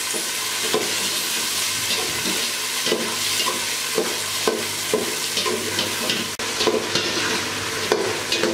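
Green peas sizzling as they fry in hot oil in a metal pot, stirred with a slotted metal spoon that scrapes and knocks against the pot about twice a second.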